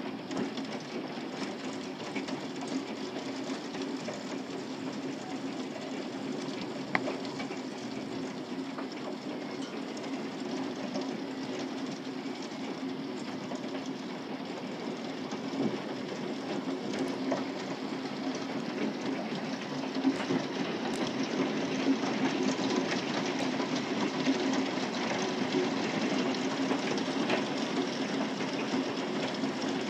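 Hail falling hard, a dense steady clatter of small ice pellets striking, growing louder about two-thirds of the way through.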